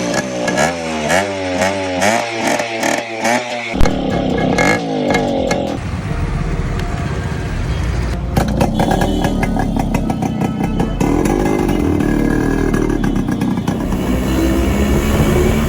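Modified Yamaha RX100's two-stroke single-cylinder engine being revved: quick throttle blips about twice a second in the first few seconds, then running at high revs with the pitch rising and falling.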